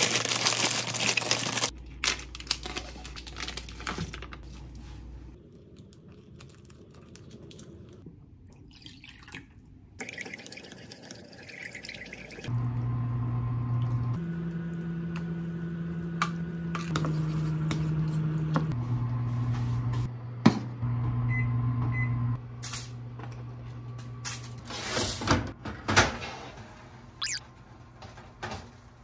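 Kitchen sounds while preparing noodles: water running and dripping at a sink as the noodles are rinsed and drained in a plastic colander, with a steady appliance hum for several seconds in the middle and a few sharp clicks and knocks of containers and utensils.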